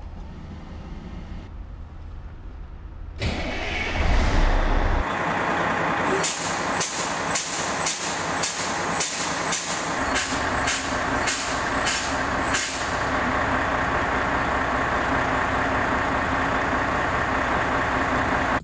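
Fire engine's diesel engine running while the brake pedal is pumped: a string of about eleven quick air-brake exhaust hisses, roughly one every half second, as the air tanks are bled down for the compressor cut-in test. The engine gets louder about three seconds in, and after the hisses stop it runs on steadily.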